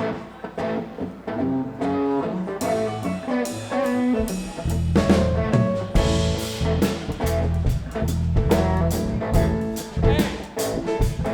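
Live band playing the instrumental intro of a song: separate picked notes at first, then bass and drums come in about four and a half seconds in and the full band plays on.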